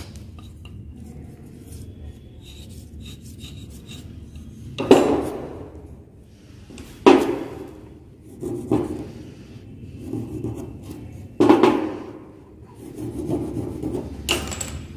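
Marking gauge scraped along a piece of wood to scribe a line, a steady rubbing. Several sharp knocks come on the workbench, the loudest about five, seven, eleven and fourteen seconds in.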